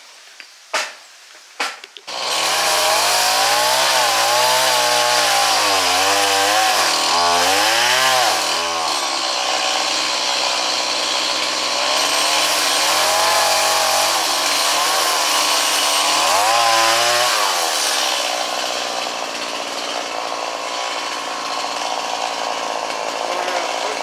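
Two-stroke chainsaw starting up about two seconds in and revving up and down repeatedly as it cuts down a small tree, then running more steadily near the end. Two sharp clicks come just before it.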